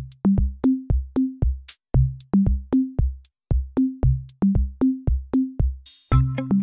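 Electronic background music: a drum-machine beat with short bass notes under each hit. About six seconds in, a brief burst of hiss leads into a fuller passage with held notes.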